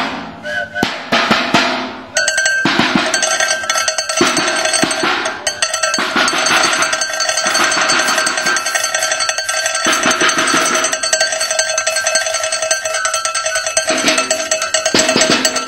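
A bell shaken rapidly and without a break, giving a dense metallic clanging ring that starts about two seconds in, after a few shorter different noises.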